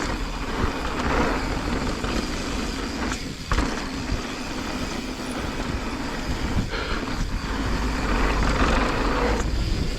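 Mountain bike descending a dirt trail: wind buffets the microphone with a heavy rumble while the tyres hiss and crunch over the dirt, swelling louder about a second in and again near the end, with a few sharp knocks from the bike over bumps.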